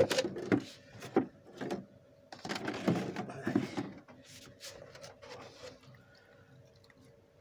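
Rustling and scraping of sphagnum moss being gathered up by hand, in a run of scratchy, crackly bursts that thin out after about four seconds, over a faint steady hum.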